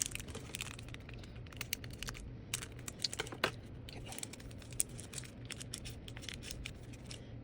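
A small bag of miniature potting rocks being handled and opened: crinkling and tearing, with many small scattered clicks.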